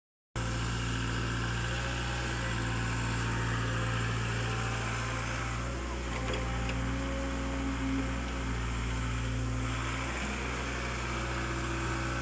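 KATO hydraulic excavator's diesel engine running steadily as the machine digs and swings, its note wavering a little in the middle as the arm moves under load.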